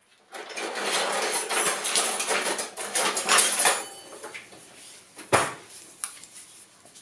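Off-screen kitchen handling noise: a dense run of clattering for about three and a half seconds, then a few lighter knocks and one sharp click.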